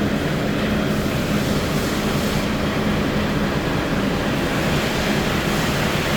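D13 inline-six diesel engine idling steadily after its rebuild, an even running drone with a constant low hum.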